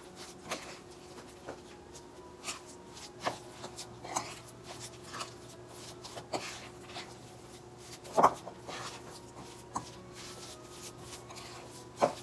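Metal spoon stirring a sticky tapioca and jaggery ladoo mixture in a glass bowl: irregular scrapes and clinks of the spoon against the glass, the loudest knock about eight seconds in, over a faint steady hum.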